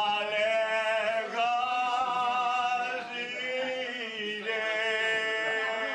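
A man singing alone in an operatic style, holding a few long, drawn-out notes.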